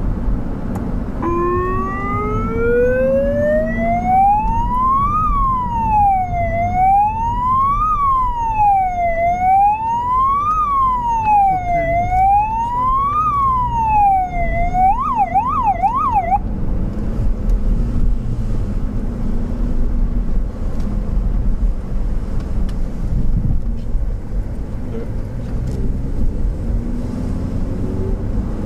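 Emergency vehicle's electronic siren heard from inside its own cabin: it winds up in pitch over about four seconds, wails up and down about every two and a half seconds, switches to a fast yelp for a second or two, then cuts off suddenly about sixteen seconds in. Engine and road noise run underneath throughout.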